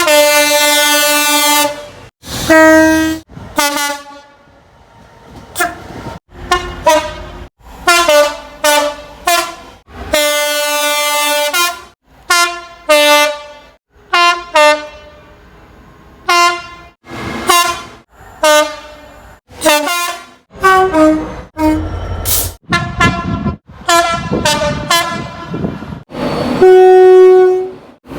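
A rapid run of British train horns edited together from many short clips with abrupt cuts: single blasts and two-tone sequences stepping between pitches, from diesel and electric locomotives and multiple units.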